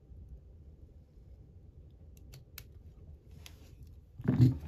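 A few faint metallic clicks from a spring bar tool working a watch spring bar at the lug, then a loud, sudden knock near the end as the spring bar slips free and springs away.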